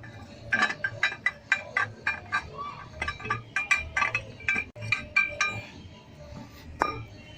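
Irregular metallic clinks and knocks, several a second with a short ring after each, as a worn steel camshaft is worked out of a GM engine's cam carrier by hand.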